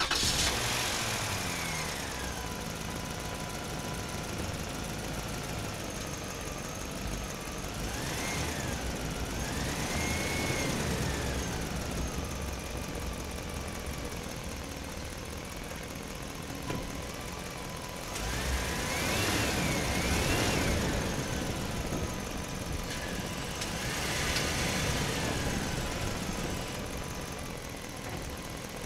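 RC excavator running, with a steady engine-like drone. Its electric motors whine over it, rising and falling in pitch several times as the machine drives and moves its arm.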